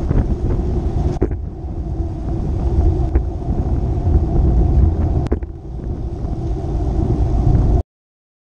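Wind buffeting the microphone of a bicycle-mounted action camera on a fast downhill ride, a heavy low rumble with a few short knocks. The sound cuts off abruptly near the end.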